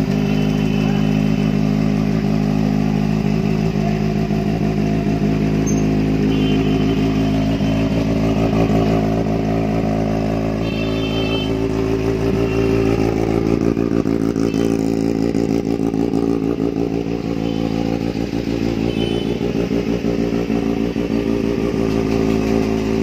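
Kawasaki Z800's inline-four engine running at a steady idle.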